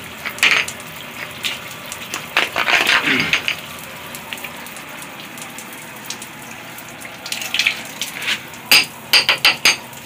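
Running water spattering steadily onto a wet tiled floor while welded metal brush plates are rinsed under it. Several sharp metal clinks and knocks from the plates, with a quick cluster of them near the end.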